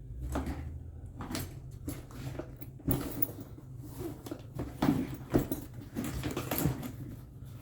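A series of irregular knocks, clicks and clattering over a steady low hum.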